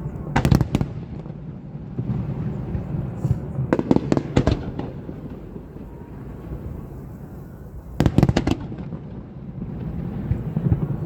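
Aerial fireworks bursting overhead: three volleys of rapid, crackling bangs about four seconds apart, with a steady low rumble of echoes between them.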